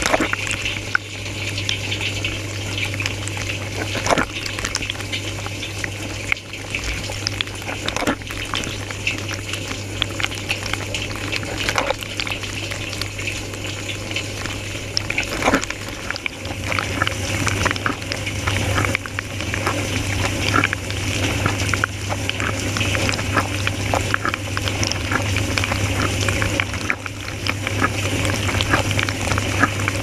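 Water jets spraying and splashing inside a running dishwasher, heard from within the wash tub, over a steady low hum. In the first half a sharper splash comes about every four seconds; from about halfway through, with the intensive cycle, the hum and the spray grow louder.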